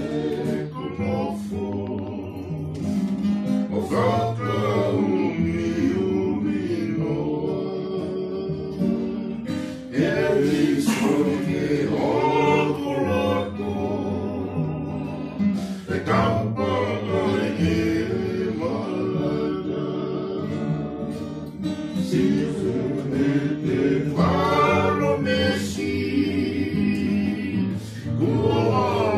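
A group of voices singing a song to a strummed acoustic guitar.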